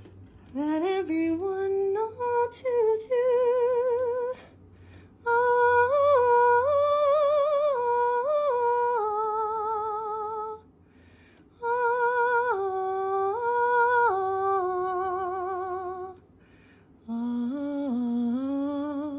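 A woman humming a slow melody in long held notes with a strong vibrato, in four phrases with short pauses for breath between them; the first phrase climbs step by step in pitch.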